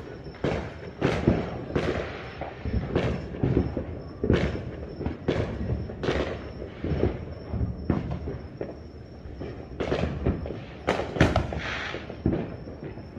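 Fireworks and firecrackers going off: a dense, irregular string of bangs and crackles with echoing tails, the loudest about a second in and again near the end.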